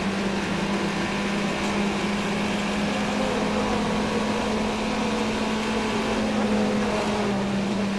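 A steady droning hum at one unchanging pitch over an even rushing noise.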